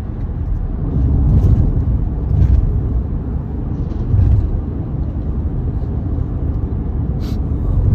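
Low, steady rumble of a moving car, with a few brief louder swells.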